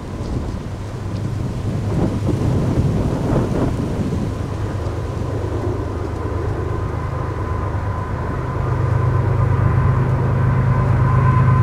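An approaching freight train's GE ES44AC diesel locomotives, a low engine rumble growing steadily louder, with steady higher tones coming in near the end.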